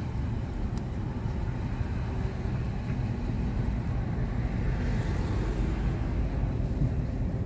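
A van driving slowly, heard from inside the cab with the windows down: a steady low rumble of engine and road noise.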